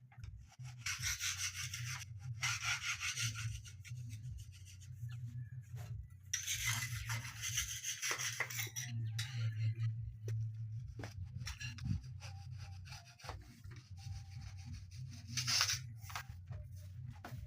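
Quick repeated scrubbing strokes of something rubbing on a hard surface, in two long runs and a short burst near the end, over a steady low hum.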